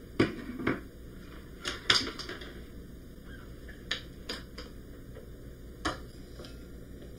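Small clicks and knocks from handling a hand blender's chopper cup: the blade assembly is lifted out and the crushed cookie crumbs are scraped and tapped out of the cup. About seven sharp taps come spread through, the loudest near the start and around two seconds in.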